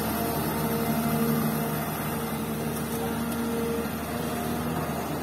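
Komatsu PC200 excavator's diesel engine running under hydraulic load as the machine swings a full bucket of fill. It makes a steady drone with a constant hum in it.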